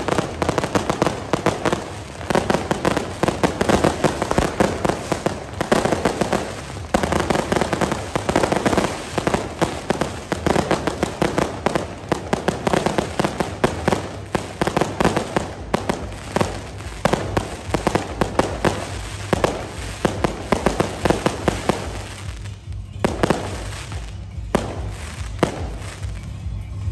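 Fireworks and firecrackers going off in a dense, rapid crackle of bangs. Near the end it thins to a few separate cracks.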